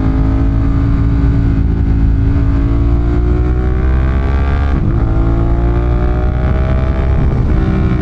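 Ducati Monster 1200's L-twin engine pulling hard under acceleration, its pitch climbing steadily. The pitch drops briefly at two upshifts, about five seconds in and again near the end.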